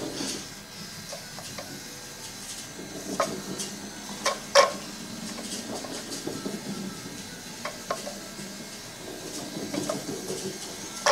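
Kyosho Mini-Z RWD radio-controlled car running slowly on a wooden floor: a faint, steady whir of its small electric motor and gears with tyre noise, and a few sharp clicks a few seconds in.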